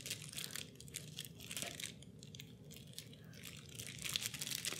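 A thick stack of paper game cards being handled and thumbed through: faint, rapid clicks and rustling of card edges against each other.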